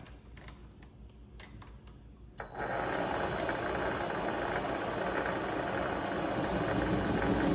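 Vevor MX400 mini lathe starting up about two and a half seconds in, after a few light clicks, then running steadily with a faint high whine, ready for a chamfer cut.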